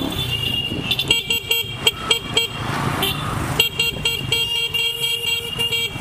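Vehicle horns honking in street traffic: a quick run of short toots, then one long blast of about two seconds near the end, over the low running noise of engines.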